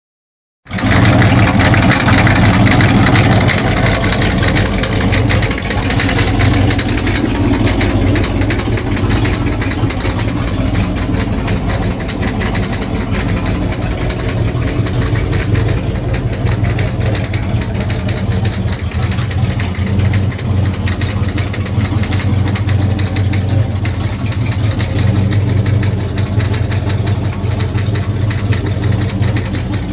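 Rebuilt 350 Chevrolet small-block V8 inboard of a 1965 Chris Craft ski boat idling steadily, run out of the water on its trailer.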